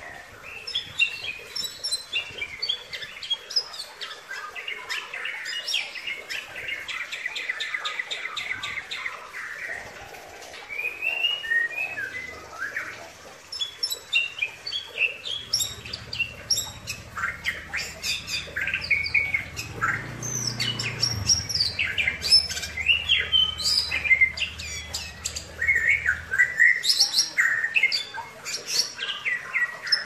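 Bali myna (Bali starling) singing a long, varied run of whistles, chattering notes and sharp calls, including a fast trill of rapidly repeated notes several seconds in.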